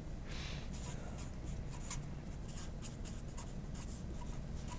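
Felt-tip marker writing on paper: a faint run of short scratching strokes.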